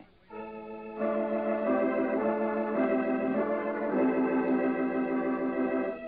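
Organ music bridge between scenes of an old-time radio drama: sustained organ chords that come in softly, swell about a second in, and move through several chord changes.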